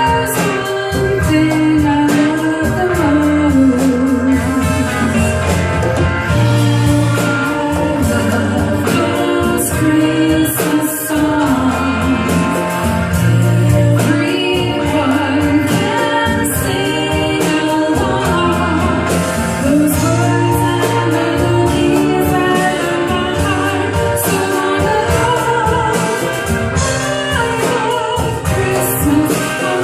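Live band music with singing: a sung melody over bass, guitar and a steady drum beat.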